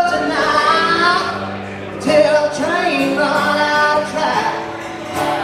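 Music: a sung melody over acoustic guitars, from a duo singing and playing acoustic guitars live.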